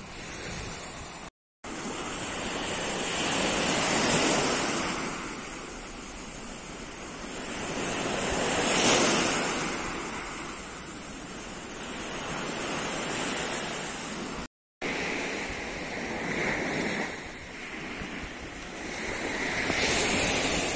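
Black Sea surf breaking on a sand beach, the wash swelling and fading as each wave comes in. The sound cuts out briefly twice.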